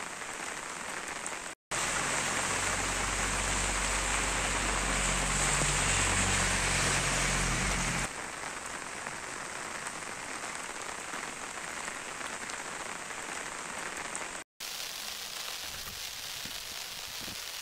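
Steady heavy rain, an even hiss of rain falling on roofs and streets, broken twice by brief sudden dropouts. For several seconds after the first break it is louder, with a low hum underneath.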